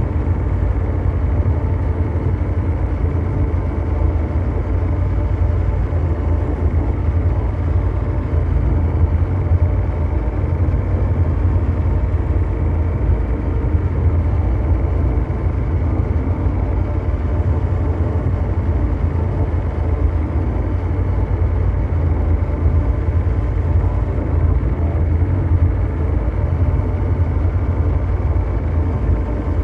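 Continuous mechanical drone noise: a steady, unchanging deep rumble, strongest in the bass, with a few faint steady hum tones above it and almost no treble.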